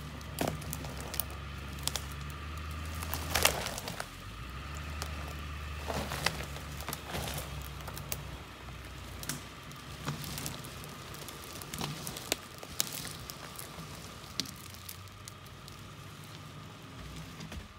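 Footsteps crunching through brush and dry twigs on the forest floor, with irregular snaps and cracks, the sharpest about three and a half seconds in. A steady low engine hum, the truck idling, runs underneath and eases off in the second half.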